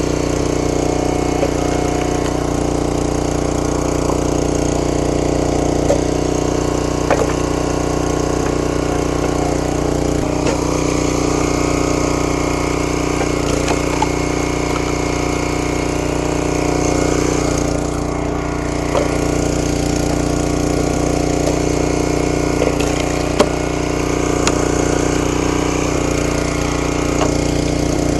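Brute 35-ton gas log splitter's engine running at a steady speed while wood cracks and splits, with a few sharp snaps along the way.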